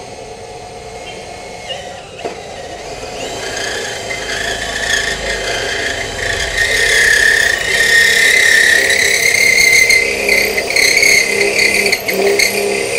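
Milwaukee M18 FPD3 cordless drill driving a 22 mm Unika core cutter through 6 mm steel plate: the motor runs under load while the cutter bites with a high metallic squeal that builds from about three seconds in and grows steadily louder.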